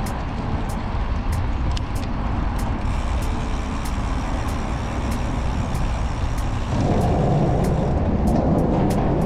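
Wind and riding noise from a road bike rolling on a paved trail, a steady low rush with a faint regular tick nearly twice a second. About seven seconds in the noise steps up louder.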